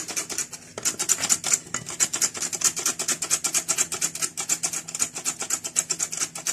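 Hand-operated metal flour sifter being worked over a bowl, its wire agitator rasping against the mesh in a rapid, even rhythm as flour is sifted.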